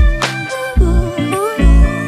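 Background music with a steady beat: bass notes pulsing under a melody line that bends in pitch.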